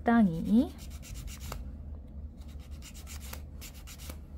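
Wooden emery board nail file rubbing in short repeated strokes along the side of a silk-wrapped fingernail coated in cured base gel, filing down the raised step at the silk's edge.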